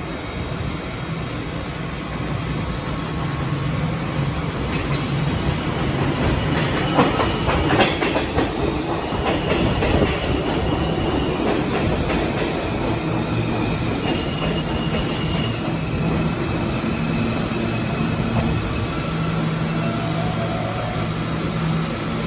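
New York City Subway J train pulling into an underground station and braking to a stop. Its wheels clack over rail joints, a high brake and wheel squeal follows as it slows, and a steady low hum runs under it.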